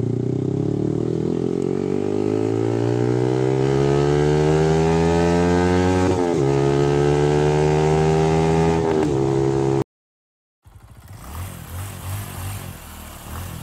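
Yamaha R15 V3's 155 cc single-cylinder engine through an aftermarket R9 racing exhaust, accelerating up through the gears: the pitch climbs steadily, drops at an upshift about six seconds in and again near nine seconds, then cuts off abruptly about ten seconds in.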